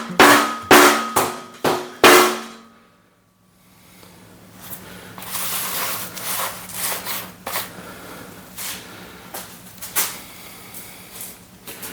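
Hammer blows on steel, about two a second, each ringing with a steady metallic tone, as the lifting magnet is knocked into its hole in the steel welding tabletop. The blows stop about two seconds in. After a brief hush come a low steady hum, a hiss and scattered light clicks.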